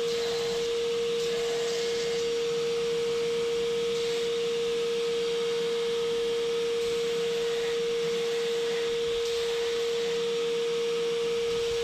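Beaumont KMG-TX belt grinder running with a steady high whine while a dyed, stabilized birch handle scale is ground against the abrasive belt, giving an even gritty hiss.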